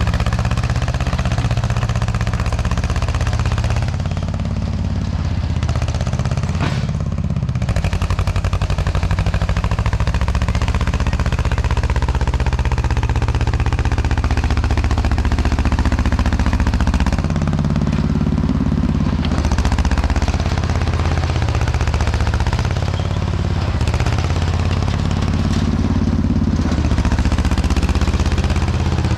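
Diesel engine of a tracked earth-moving machine running under working load, its pitch rising and falling slightly as the load changes.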